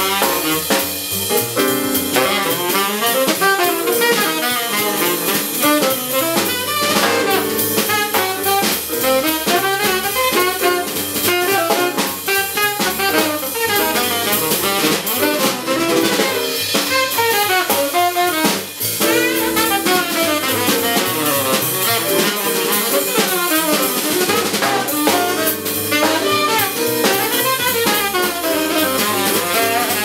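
Live jazz quartet: tenor saxophone playing a continuous line over digital piano, upright double bass and drum kit.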